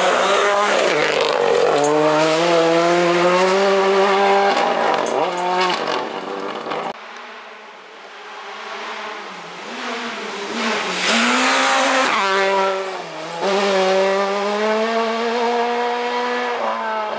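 Rally car engines at full effort on a gravel stage: first one car's engine running at high revs with its pitch stepping up and down through gear changes, then, after a break, another engine drawing near, easing off and revving up again through the gears.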